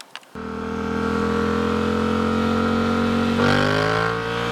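Yamaha MT-07's parallel-twin engine running through its aftermarket exhaust, cutting in just after the start with its pitch slowly rising, then getting louder and higher about three and a half seconds in as the throttle opens further.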